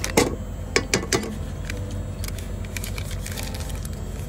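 Cookware clinking and knocking: four sharp clinks in the first second or so, then lighter ticks, over a steady low hum.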